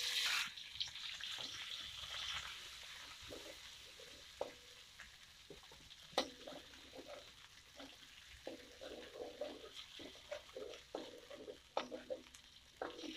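Ground chilli-and-spice paste sizzling in hot oil in a wok. The sizzle is loudest at first and dies down over the first couple of seconds. A metal spatula stirs and scrapes the wok with scattered clicks and taps.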